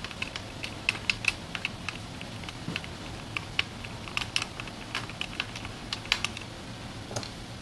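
Two 5 mm Allen wrenches working a rear wheel axle bolt loose: a run of light, sharp metal clicks and clinks at an uneven pace, a few a second.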